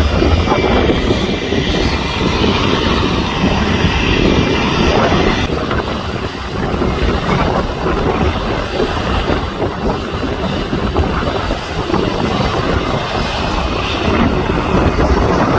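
Airliner engines at close range: a loud, steady rushing noise with a faint high whine in the first five seconds or so, after which the sound changes.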